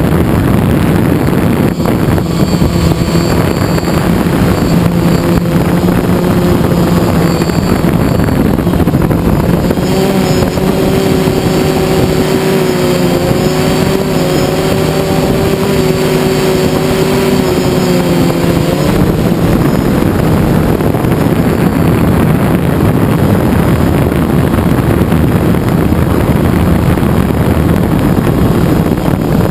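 DJI Phantom quadcopter's four motors and propellers whirring steadily, heard loud and close through the GoPro mounted on the drone, with wind rushing over the microphone. From about ten to nineteen seconds in, a set of higher, wavering motor tones rises over the steady whir.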